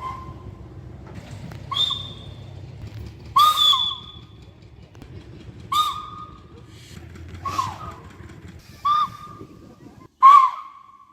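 A high-pitched whistle giving short toots, seven in all at uneven intervals of one to two seconds, each note bending up and back down. A low rumble underneath cuts off near the end.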